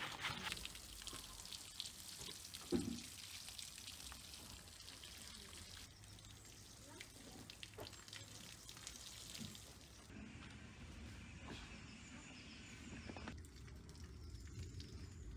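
Water sprinkling from a metal watering can's rose onto soil, a soft, even patter and hiss. One thump about three seconds in.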